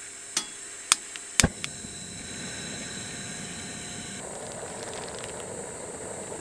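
A portable camping gas stove being lit: about five sharp igniter clicks in the first second and a half, then the burner catches and runs with a steady hiss of gas flame, which turns deeper about four seconds in.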